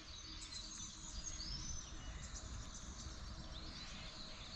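Birds chirping over a steady hum of insects, with a low rumble underneath.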